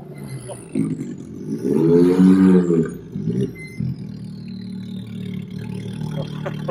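Can-Am Maverick X3's turbocharged three-cylinder engine revving once about two seconds in, its pitch rising and falling, then running steadily at low revs. A faint high whine slides slowly down in pitch.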